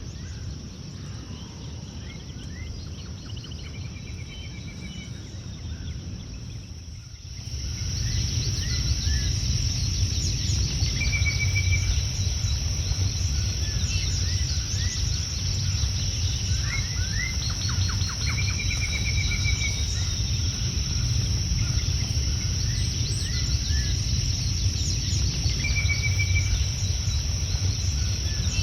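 Several wild birds chirping and trilling, with short repeated trills and quick upward calls, over a steady high insect drone and a low rumbling background. Everything gets louder about seven seconds in.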